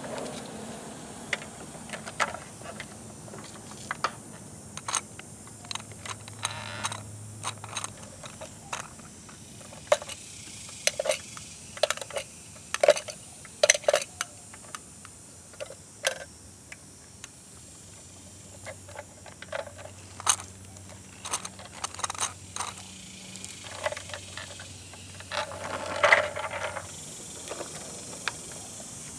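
Small plastic toy trash carts and a die-cast toy garbage truck handled by hand: scattered clicks, taps and light rattles as a cart is lifted and tipped into the truck's hopper.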